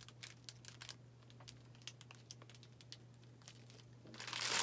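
Clear plastic pack of diamond-painting drill baggies crinkling as it is handled, first as faint scattered crackles and ticks, then louder and denser about four seconds in.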